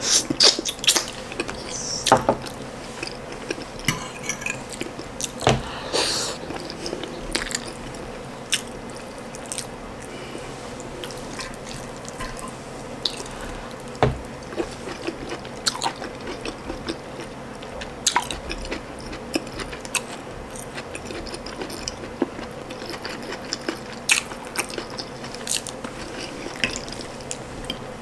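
Close-miked wet chewing and lip smacking of ndole stew and soft boiled ripe plantain: irregular moist clicks and smacks, busier in the first few seconds.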